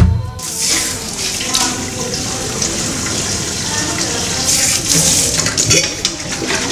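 Water running from a tap into a stainless steel bucket and splashing as the bucket is rinsed and tipped. It opens with a short low thump.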